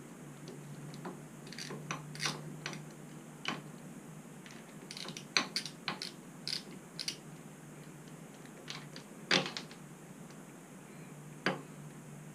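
Scattered light clicks and metal knocks of a socket ratchet and small metal parts being handled while the master cylinder's handlebar clamp bolts are snugged up. The clicks come irregularly, with two louder knocks about five and nine seconds in.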